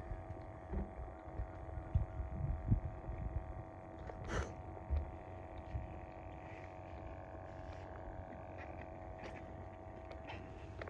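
Outdoor bank-side ambience dominated by low rumbling and thumps of wind and handling on a phone microphone, with a faint steady hum throughout. There is one sharp click about four and a half seconds in.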